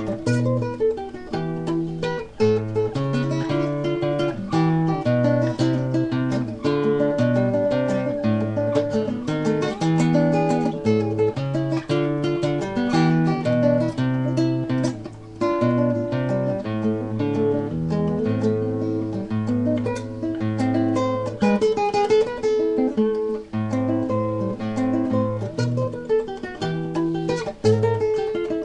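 Solo acoustic guitar playing a tarantella: a fast, continuous run of plucked notes and chords over a bass line.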